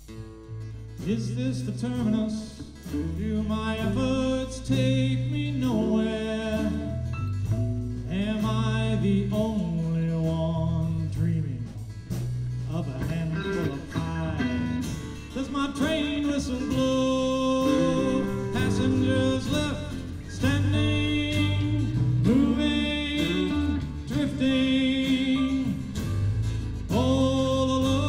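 Live rock band playing an original song: electric guitars, bass and drums, with singing over them. The full band comes in loud about a second in.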